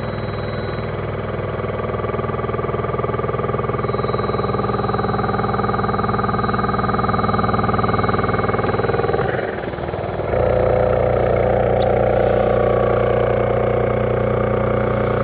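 O2 Concepts OxLife Independence oxygen concentrator running off room air: a loud, steady compressor hum, the noisy machine that ran all night. About ten seconds in the sound dips briefly, then comes back louder.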